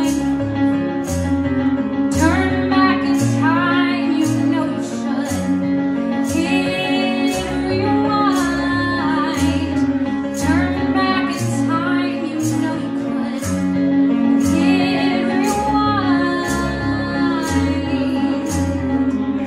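A woman singing a slow song with electric keyboard accompaniment: sustained bass notes and chords under her voice, with a steady beat of light percussive strokes.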